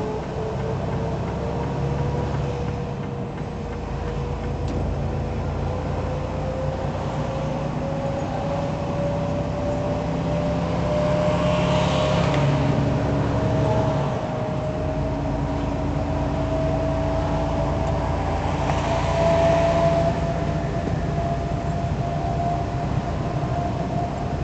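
Semi truck running at freeway speed, heard from inside the cab: steady engine and road rumble with a whine that slowly rises in pitch. Twice there is a short swell of rushing noise, about halfway through and again some seconds later.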